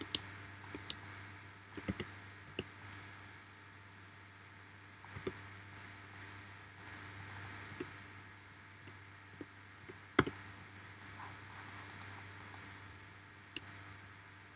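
Irregular clicks of a computer mouse and keyboard, some in quick clusters, with one louder click about ten seconds in, over a faint steady low hum.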